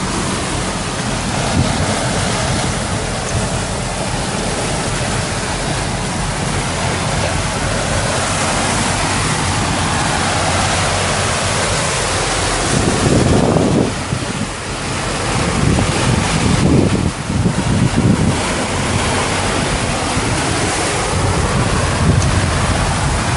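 A sportfishing boat running at speed offshore: the steady drone of its engines under rushing water and wake, with wind buffeting the microphone in heavier gusts about halfway through.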